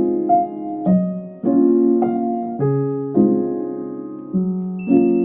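Background music: a gentle piano piece, chords struck roughly every half second to second and left to ring and fade.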